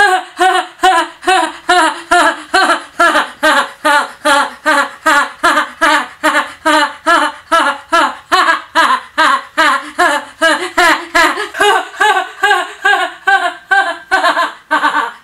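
A woman's high-pitched laugh, an even, unbroken run of short 'hee' notes at about three and a half a second, each note dipping in pitch. It is an imitation of another person's laugh.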